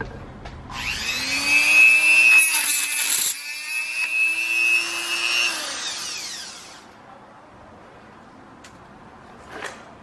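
Handheld electric power tool spinning up and running, stopping for a moment about three seconds in, running again, then winding down. A faint click comes near the end.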